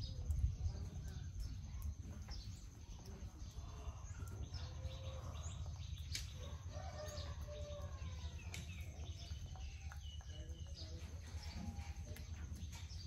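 Scattered bird chirps over a low, steady rumble, with a few faint clicks.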